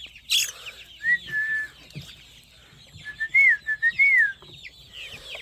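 Clear whistling, a short whistle about a second in and a longer run of rising and falling whistled notes about three seconds in, over a constant chatter of chirping and clucking from a flock of chickens and small birds.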